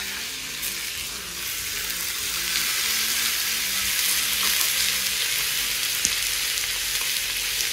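A hot pot of layered rice sizzling hard just after a mix of oil and hot water has been poured around it, with pita-bread tahdig frying in oil on the pot's bottom over high heat. The hissing sizzle swells over the first couple of seconds and then holds steady.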